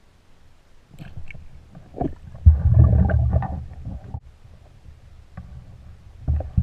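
Muffled underwater water noise: low rumbling and gurgling with a few sharp knocks. It is loudest for about a second and a half, starting about two and a half seconds in.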